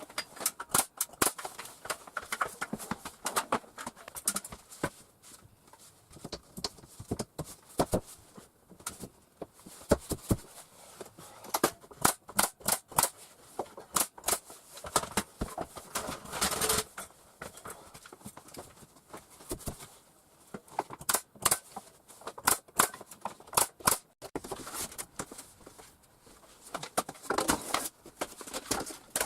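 Irregular run of sharp knocks and clicks, often in quick clusters, from work on wooden lining boards.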